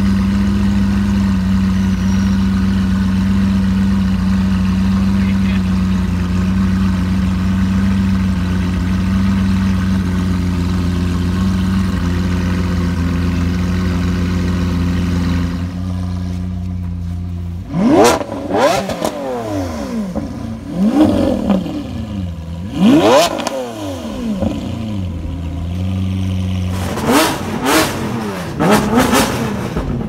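Lamborghini Aventador's V12 idling steadily, then, after a cut, revving hard in three quick rising and falling sweeps, followed near the end by a rapid series of sharp rev blips.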